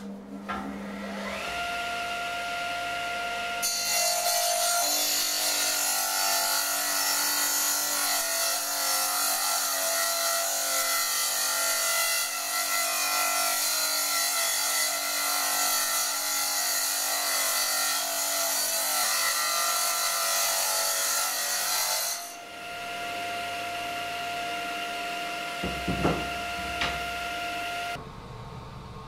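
Table saw starting up, its blade rising to a steady whine, then cutting a wooden board for about eighteen seconds in a loud, dense rasp. After the cut the blade runs free again with its steady whine, with a few knocks about three seconds before it cuts off.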